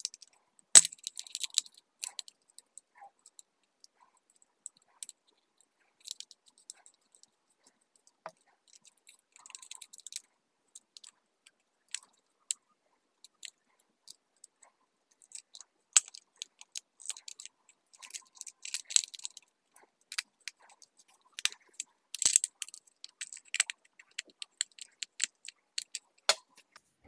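Screwdriver turning the small screws of socket modules on a plastic switch board plate: scattered clicks, taps and scrapes of metal on plastic, coming in clusters with short pauses between.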